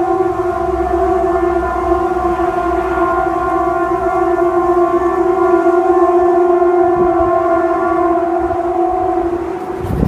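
A loud, steady, trumpet-like droning tone held on one pitch with several overtones, fading near the end: one of the unexplained 'strange sounds in the sky' heard from outdoors.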